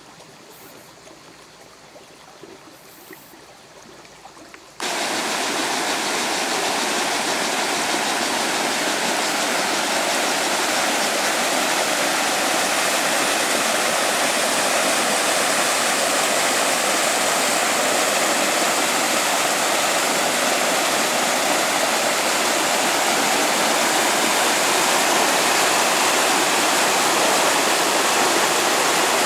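Faint for the first five seconds, then, about five seconds in, an abrupt cut to loud, steady rushing water: fast white water tumbling down a mountain irrigation channel and pouring down beside a stone wall.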